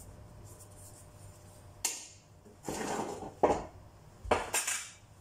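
Metal ladle knocking and scraping against stainless steel pots and a colander as cooked rice is scooped across. It is quiet at first, then there is a sharp knock about two seconds in, followed by a run of scrapes and clinks.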